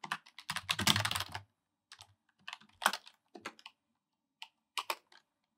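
Typing on a computer keyboard: a quick run of keystrokes in the first second and a half, then scattered single key presses that stop about five seconds in.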